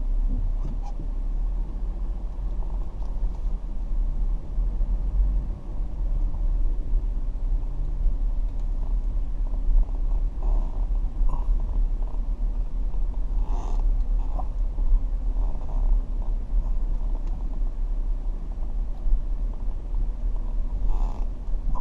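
Car driving, a steady low rumble, with a few short faint hisses about halfway through and near the end.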